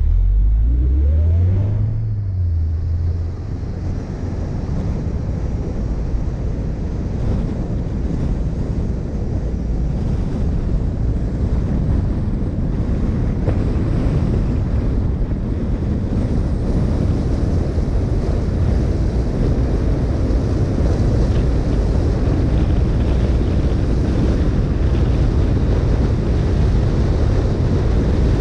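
Mini Cooper S Roadster's turbocharged four-cylinder engine revving up as the car pulls away, its pitch dropping about two seconds in. After that comes steady tyre and wind noise at cruising speed, with wind rumbling on the microphone.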